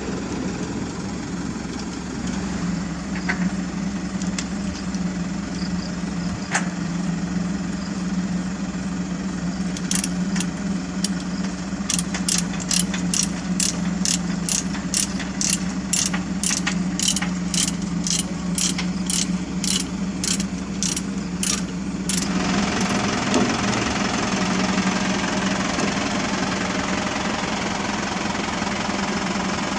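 Diesel engine idling steadily, joined midway by a run of sharp metallic clicks at about two a second for roughly ten seconds: a ratchet load binder being worked to tighten the chain that holds the mini excavator's track to the truck deck. When the clicking stops, the engine sound turns fuller and slightly louder.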